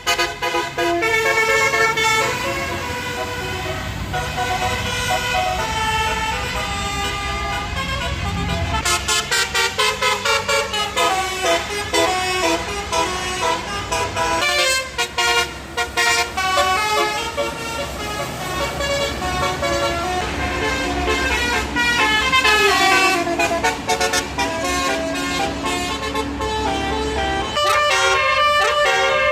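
Telolet basuri bus horns playing a wavering flute-like melody, note after note, over the low rumble of bus engines. The tune pauses briefly about halfway through and then starts up again.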